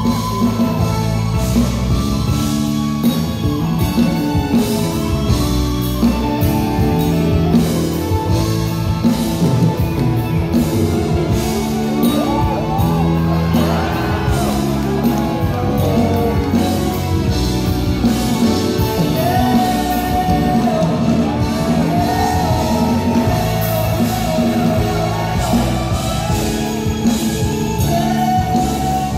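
Live band music with a male singer, loud through a concert hall's sound system, over a steady drum beat. Audience shouts rise above the music.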